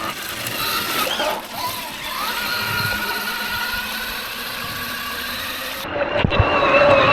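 Electric RC car motor and drivetrain whining over a rushing noise, its pitch rising as the throttle opens and then holding steady. Near the end the sound changes abruptly to a wavering whine.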